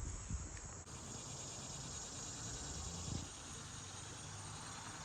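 Faint outdoor ambience with a steady high-pitched insect drone.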